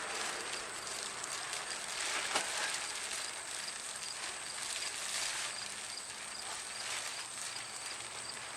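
Plastic tarp rustling and crinkling as its corners are gathered up and tied together, with scattered sharper crackles.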